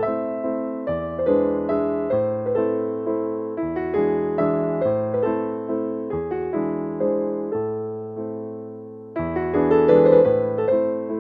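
Keyboard music, probably piano: notes and chords struck one after another and left to ring and fade. It quietens toward a softer passage and then comes in louder again about nine seconds in.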